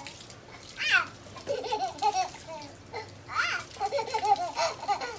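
Baby squealing and babbling with laughter: short sing-song calls, with two louder high squeals, about a second in and about three and a half seconds in.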